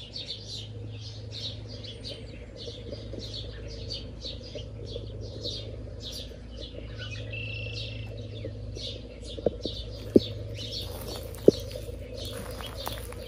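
Songbirds chirping and singing in many quick repeated notes, over a low steady hum, with a few sharp clicks near the end.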